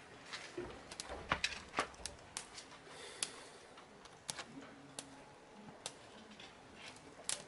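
A newly lit kindling fire of dry twigs and paper crackling in a stone bread oven, with irregular sharp snaps and pops as the fire catches.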